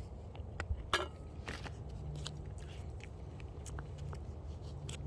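Mouth sounds of someone eating applesauce: a couple of brief wet smacks or slurps about a second in, then scattered small clicks over a low steady hum.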